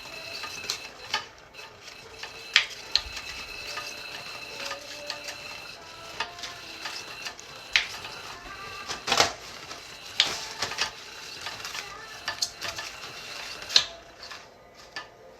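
Plastic automatic cat toy clattering and knocking irregularly as its motor runs and a kitten bats at it, with faint background music.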